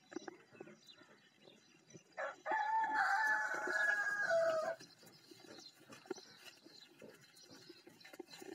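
Goat kids eating grain from a metal bowl, with soft scattered clicks and crunches of feeding. About two seconds in, a loud, drawn-out animal call from off-picture lasts about two and a half seconds, dropping in pitch just before it stops.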